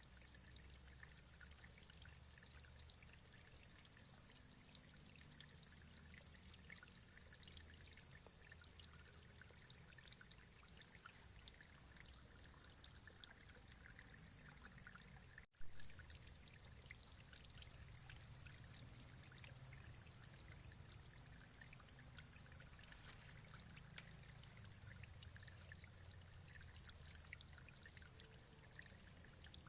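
Faint, steady running water, a small stream trickling and pouring. About halfway through, the sound drops out for an instant and comes back with a short click.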